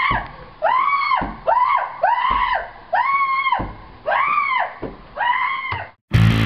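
A person screaming over and over in short, high cries, each rising and then falling in pitch, about eight in a row. The screaming cuts off abruptly near the end, and loud electric guitar music starts.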